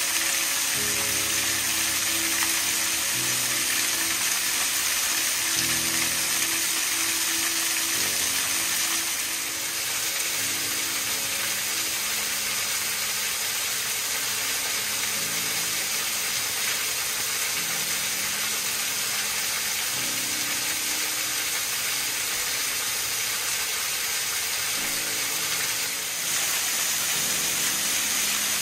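A thin waterfall splashing onto rock and into a shallow pool, a steady hiss of falling water. Slow music of held chords plays under it.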